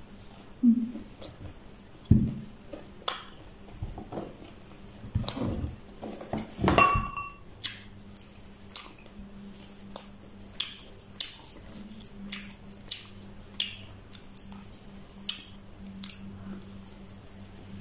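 Close-up eating sounds of fried chicken wings being bitten and chewed, with short sharp mouth clicks and smacks every second or so. There is a brief ringing clink of tableware about seven seconds in.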